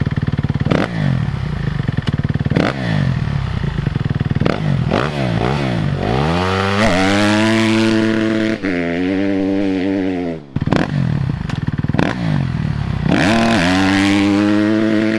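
Kawasaki KX250F's single-cylinder four-stroke engine blipped up and down several times, then revved hard and held at a high steady pitch as the dirt bike launches away on grass. This happens twice. Kawasaki's launch control is engaged in second gear, retarding the ignition to cut wheelspin.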